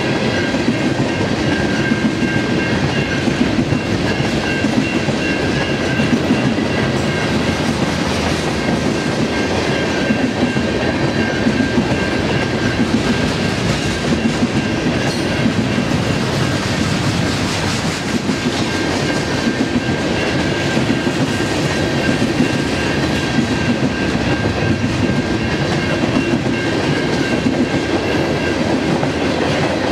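Loaded freight train of grain hopper cars rolling past at steady speed, steel wheels clacking over the rail joints, with a faint steady high-pitched ring over the rumble.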